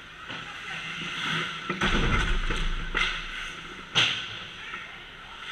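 Ice hockey play close to the goal: skates hissing on the ice and sticks and puck clacking, with a sharp crack about four seconds in.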